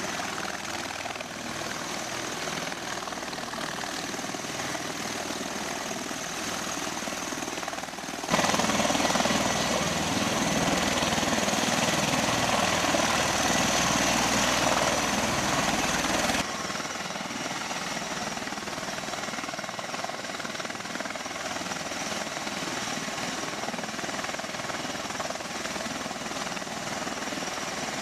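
MV-22 Osprey tiltrotors running on the ground with their rotors turning, a steady noise of turboshaft engines and rotors. It steps abruptly louder about eight seconds in and drops back just as suddenly about eight seconds later.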